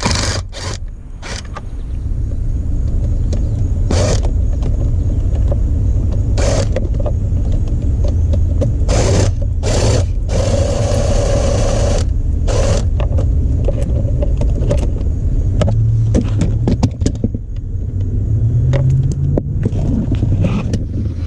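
Hand-tool clicks and knocks, with a longer grinding stretch about halfway through, as a Torx bolt behind a car's steering wheel is worked loose. A steady low rumble runs underneath throughout.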